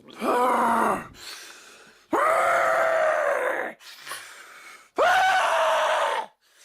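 Constipation sound effect: a person straining on the toilet, with three loud, drawn-out groans. The first rises in pitch, and there are breathy exhales between the groans.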